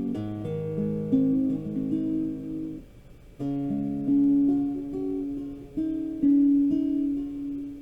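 Acoustic guitar playing the song's closing chords without singing, the notes left to ring. About three seconds in it drops off briefly, then more chords are struck and ring out.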